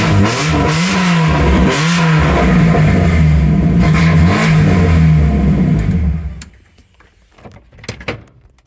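Car engine revving loudly, its pitch rising and falling in several swells. It cuts off about six seconds in, leaving a few faint clicks.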